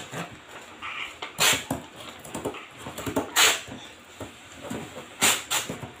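Sheets of red paper rustling and flapping as they are folded and handled by hand, with three short, loud rustles about two seconds apart and quieter handling noise between.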